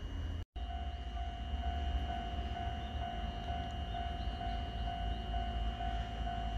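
Railway level-crossing alarm ringing, one electronic tone repeated about twice a second, over a low rumble of wind on the microphone.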